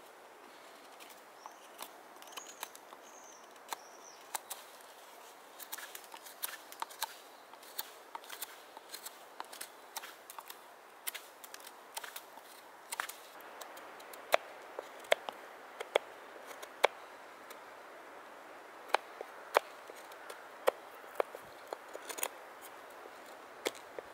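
Knife carving a birch-wood cup blank: crisp clicks and snaps as the blade slices off shavings. The cuts come unevenly at first, then as a run of louder, sharper strokes about two a second from roughly halfway through. A bird chirps faintly a couple of seconds in.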